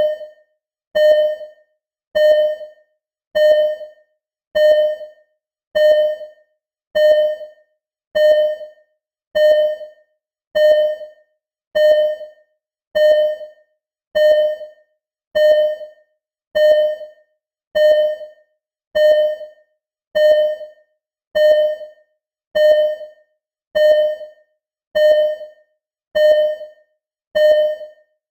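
Simulated hospital ECG heart-monitor beeping: one short, single-pitched electronic beep about every 1.2 seconds, roughly 50 a minute. Each beep fades quickly, in a steady, unchanging rhythm.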